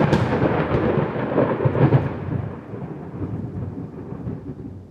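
A roll of thunder, loudest in the first two seconds, then rumbling away and fading out.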